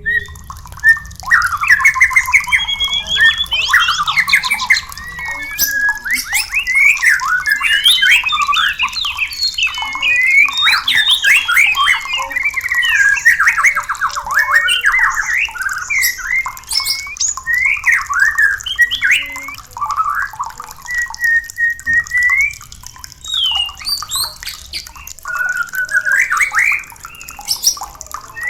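White-rumped shamas singing and calling in rapid, varied phrases of fast up-and-down notes, with only short pauses between bursts.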